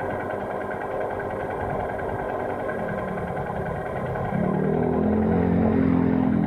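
Motorcycle engine running with a rushing noise underneath; about four seconds in the engine note gets louder and a steady hum comes up.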